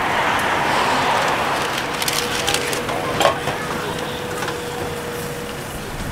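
Chicken drumsticks sizzling and crackling on a street vendor's grill, with a few sharp clicks a couple of seconds in and a faint steady hum through the middle.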